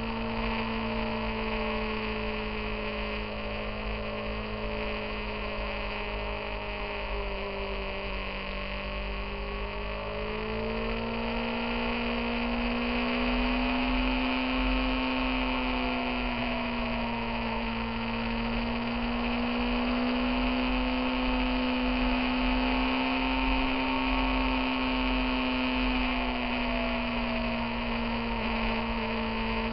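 Motorcycle engine running steadily at cruising speed, picked up by a camera mounted on the bike. Its pitch drifts gently with the curves and rises a little about ten seconds in, over a steady rush of wind.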